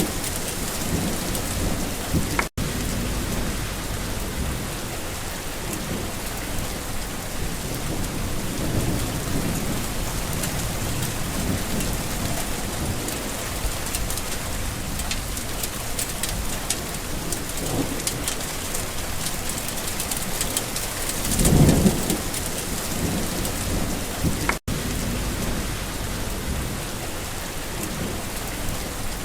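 Steady rain falling, with a low rumble of thunder swelling and fading about three-quarters of the way through. The sound drops out for an instant twice.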